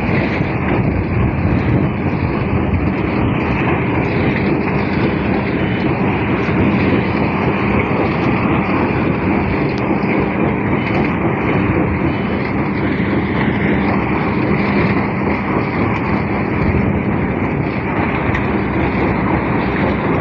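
A large engine or vehicle running steadily, a continuous rumble with a low hum and no change in pace.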